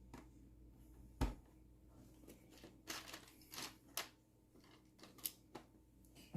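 Small plastic LEGO bricks clicking and clattering as they are handled and sorted, with a sharper knock about a second in.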